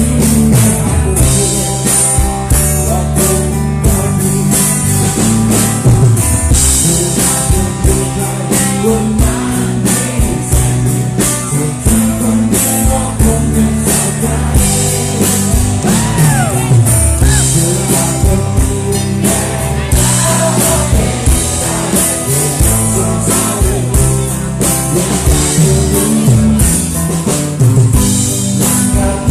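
Thai rock band playing live at full volume: drum kit, electric guitars and a sung vocal line.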